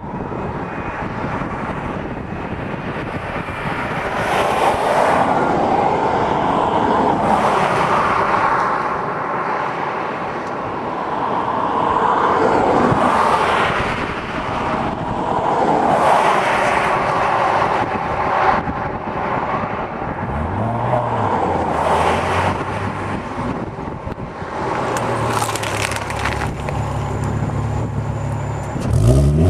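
Several cars pass on a highway with tyre and wind noise swelling and fading. Then the 2004 VW R32's VR6 engine, breathing through a full Billy Boat aftermarket exhaust, burbles close by at low revs and rises sharply as it pulls away near the end.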